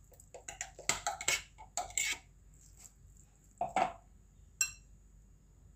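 Kitchen clatter as minced chicken is tapped and scraped out of a plastic hand chopper into a glass bowl and stirred with a fork: a cluster of knocks and scrapes over the first two seconds, another near four seconds, and one short ringing clink of metal on glass just after.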